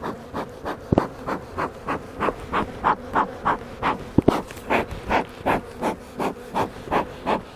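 Fast, even panting, about three breaths a second, over a faint steady hum of honey bees.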